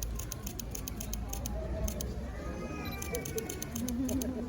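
Camera shutters clicking in quick runs, over faint chatter from onlookers.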